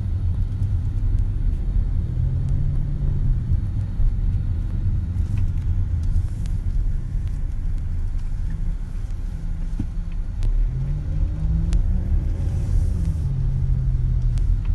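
Steady low rumble of a car being driven, heard from inside the cabin: engine and road noise, with a faint engine hum that comes in twice and shifts a little in pitch.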